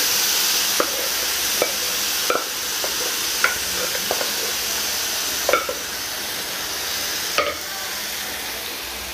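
Grated coconut frying in coconut oil in a pan sizzles steadily as cooked pumpkin and cowpeas are tipped in from a steel pot. A few sharp metallic clinks ring out at uneven intervals as the pot is scraped out over the pan.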